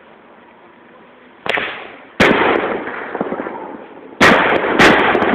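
Fireworks going off: four sharp bangs, one about a second and a half in, one near two seconds, and two close together near the end, each trailing off over a second or so.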